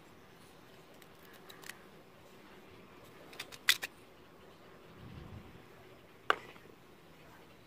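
A few sharp clicks and taps from a small metal piece being handled. The loudest come as a quick cluster about three and a half seconds in, and a single sharp tap with a short ring about six seconds in, as the piece is dropped into a plastic tub of foaming liquid.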